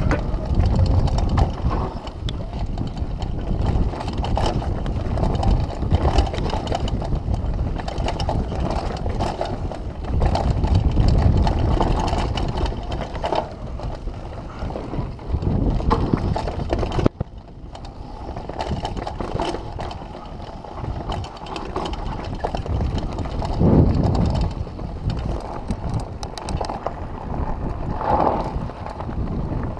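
Downhill mountain bike being ridden fast over a dirt trail: steady tyre rumble with frequent rattles and clacks from the chain and frame over bumps. The noise drops suddenly about seventeen seconds in, then carries on more quietly.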